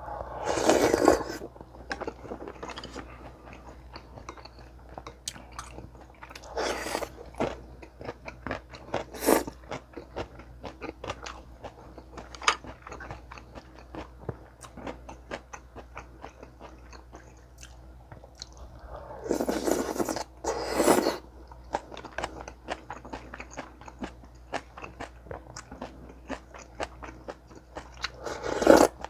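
Close-miked eating: steady chewing with crunchy bites of kimchi and kkakdugi, mixed with the soft food of a sundae gukbap meal. Louder bursts come several times, around a second in, twice near the middle and near the end.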